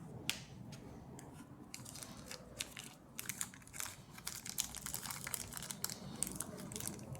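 Irregular small clicks and crackles from hands handling the metal and rubber parts of an air quick coupler while the new O-rings are lubricated and fitted. The clicks are sparse at first and come thick and fast after about three seconds.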